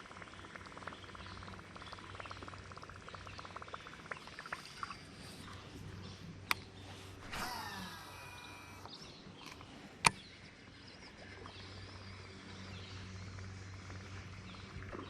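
Fishing reel in use: rapid fine clicking early on, then a whirring that winds down as line spools out on a cast, and one sharp snap about ten seconds in. A steady low hum runs underneath.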